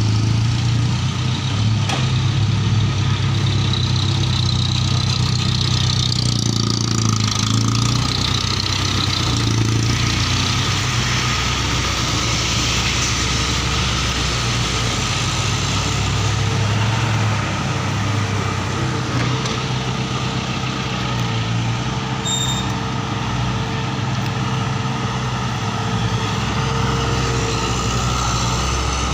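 Kobelco excavator's diesel engine running steadily, with a hiss over it during the first half.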